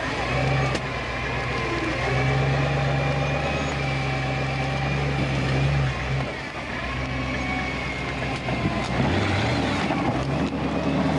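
Modified off-road trial 4x4's engine running under load as it crawls over rocks. The engine note holds steady, eases off about six and a half seconds in, then picks up again.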